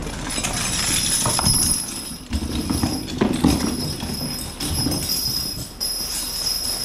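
Young Percheron draft horse shifting its hooves, an irregular string of knocks and thuds.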